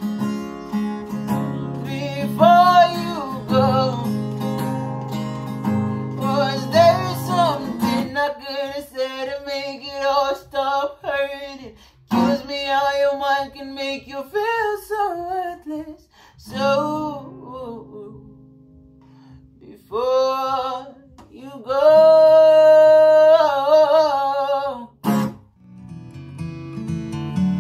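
A man singing with sliding runs and a long held note over a strummed acoustic guitar, dropping to a quiet stretch about two-thirds of the way through; near the end the guitar strums on alone after a sharp click.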